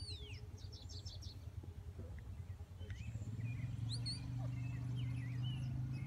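High whistles: one sliding down in pitch right at the start, then shorter chirps and rising and falling notes. Under them a low steady hum comes in about halfway and gets louder.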